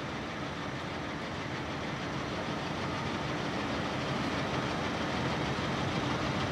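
Mecof 40C radial drill's motorised arm-elevating drive running steadily as the arm is lowered on the column, growing slightly louder.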